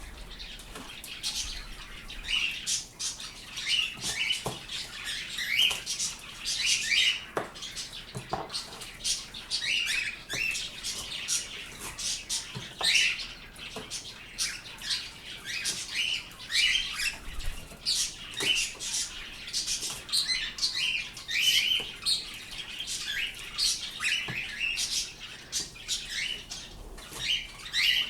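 Pet birds chirping and calling, several short chirps a second, with sharp clicks among them.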